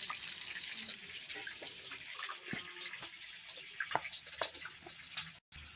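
Hot cooking oil in a kadai sizzling faintly just after frying chicken, a steady hiss with scattered small pops and clicks.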